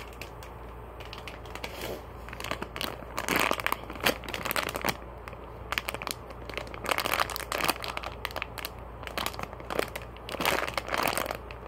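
Clear plastic packaging bag of a squishy toy crinkling in irregular crackles as it is handled.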